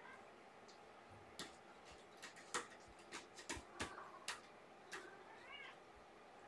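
A run of faint, sharp, irregular clicks and taps, about a dozen over a few seconds, then a short faint cat meow near the end.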